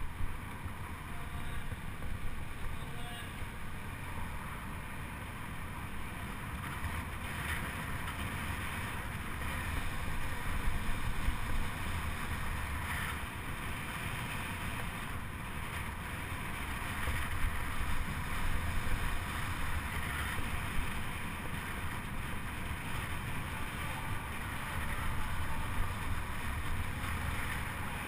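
Wind rushing over the microphone and a steady low rumble of a fixed-gear track bike rolling around the velodrome track, swelling and easing slightly as it goes.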